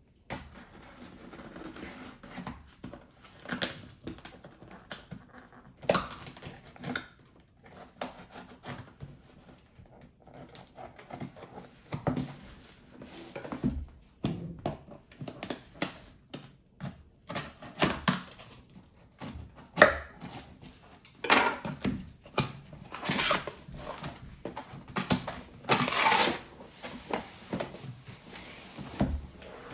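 A cardboard shipping box and its packaging being opened and handled: irregular clicks, knocks, tearing and rustling in short bursts, busier and louder in the second half.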